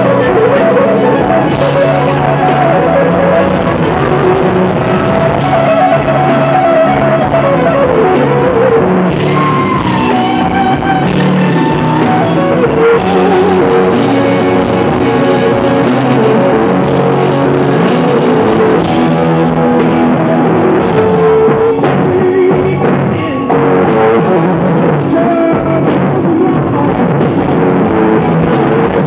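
Live rock band, loud and steady: an electric guitar plays lead lines with string bends and held notes over drums.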